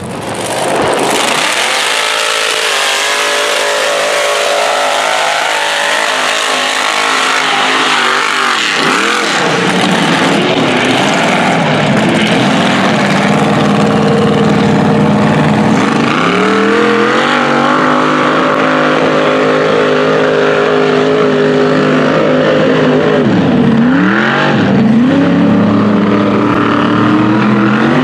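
Mega mud truck's engine running hard at high revs through a mud pit, its pitch dipping and climbing again a few times. Tyres are throwing mud.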